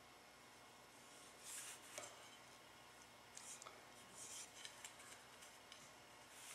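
Near silence, broken by a handful of faint, short scraping sounds and one small click.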